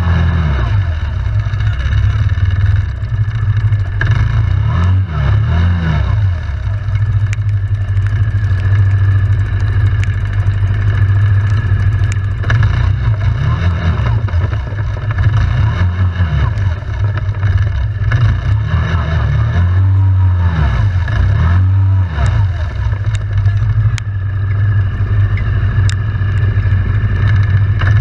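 ATV engine running under load, revving up and easing off again and again, its pitch rising and falling every few seconds.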